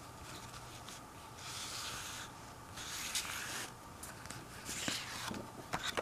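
Paper cards being slid and shuffled over one another, rustling and scraping in several short bursts, with a few sharp taps near the end.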